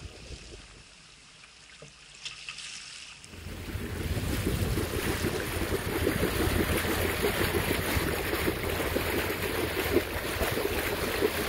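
Wind buffeting the microphone and water rushing past the hull of a sailboat under way, a loud steady rush with a low rumble that starts suddenly about three seconds in after a quiet stretch.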